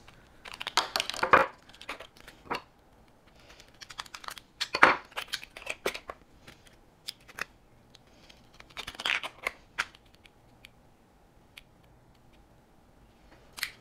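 Thin plastic seed domes being pried apart from their stack and pressed down over the pods of a hydroponic grow system. The plastic crinkles and clicks in three short bursts, with scattered single clicks between them.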